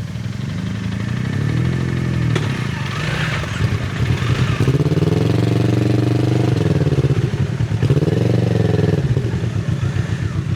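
Kawasaki Z650RS parallel-twin engine through an IXIL MK2 full exhaust, its revs rising and falling three times as the throttle is opened and closed at low speed. A single sharp knock about two seconds in.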